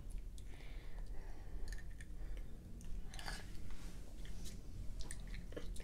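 A person chewing a jelly bean close to the microphone: scattered wet mouth clicks and smacks.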